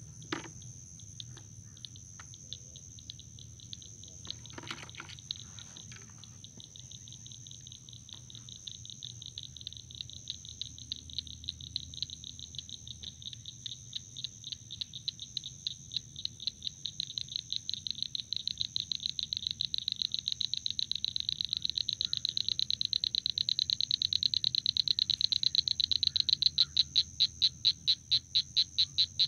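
Summer insect chorus: a steady high-pitched drone, joined after about six seconds by a rapid pulsing call that grows steadily louder toward the end. A few light clicks and knocks sound in the first few seconds.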